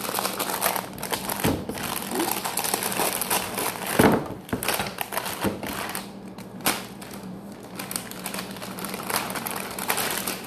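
Plastic wrapping crinkling and crackling in quick clicks as a small shawarma wrap is handled and rolled by hand, with one sharp knock about four seconds in.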